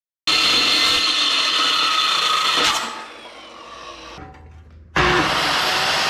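Milwaukee metal-cutting circular saw cutting through steel plate. About three seconds in it comes out of the cut and winds down, and near five seconds in it is cutting again at full loudness, starting abruptly.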